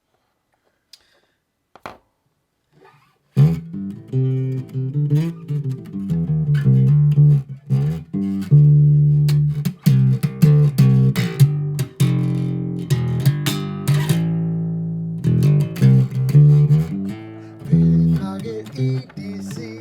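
Music with plucked guitar and a bass line, starting about three seconds in after a few faint clicks.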